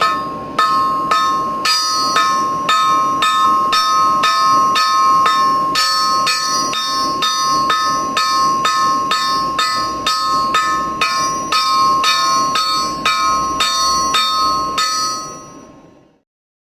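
Hand hammer striking hot round bar laid half on, half off a blacksmith's anvil to draw it out, about two blows a second. The anvil rings on a clear high tone after every blow. The blows stop near the end and the ringing dies away.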